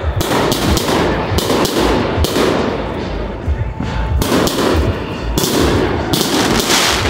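Aerial firework shells bursting in quick, irregular succession: a steady barrage of loud bangs.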